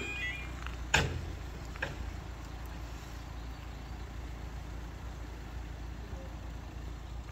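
Level-crossing barrier booms coming to rest: the two-tone yodel alarm cuts off just at the start, then there is a loud clunk about a second in and a lighter knock shortly after. A steady low rumble follows.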